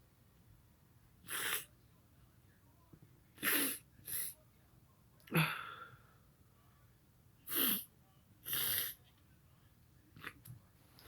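A man sneezing again and again, about six sneezes one to two seconds apart with a fainter one near the end, set off by snorted chhinkni sneezing powder.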